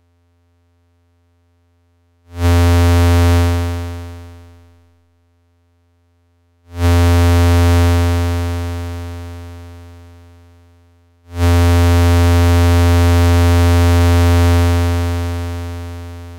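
Three low, buzzy synthesizer notes from a Eurorack modular patch, each shaped by a Make Noise Contour envelope in its three-stage attack–sustain–decay mode: a fast rise, a hold at full level while the gate is held, then a smooth fade. The later notes hold and fade longer, and the last one is still fading at the end.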